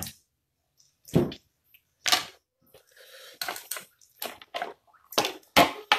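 Short wet squelches and cracks, several separate ones a second or so apart, as cooked lobster shells are pulled apart by hand.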